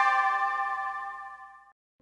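A bell-like musical chime, a chord of several notes ringing and fading out, gone a little before the end.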